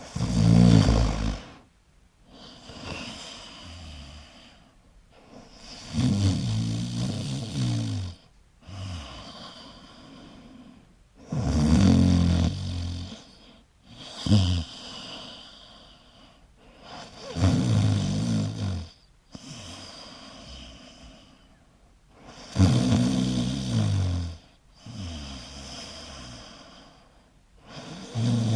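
A person snoring in sleep: six loud, low, rattling snores about every five to six seconds, each followed by a softer breath.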